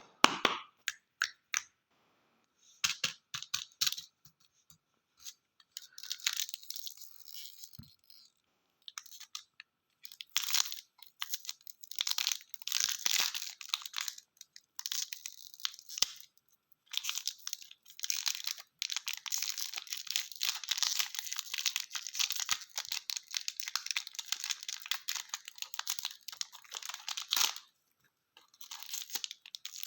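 Plastic lollipop wrappers crinkling and tearing as candy is unwrapped, in irregular runs broken by short pauses. A few sharp clicks come first.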